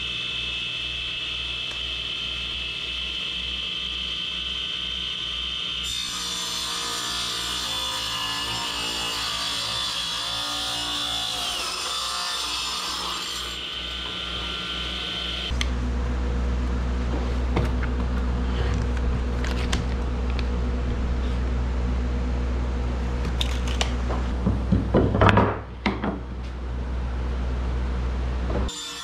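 Delta radial arm saw running and crosscutting a wooden board, with the loudest burst of cutting about 25 seconds in. The blade is very dull.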